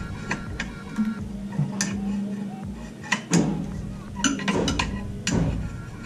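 Hand spanner working the exhaust downpipe bolts under a car: irregular sharp metal clinks and clanks, several in quick succession around the middle and near the end, over background music.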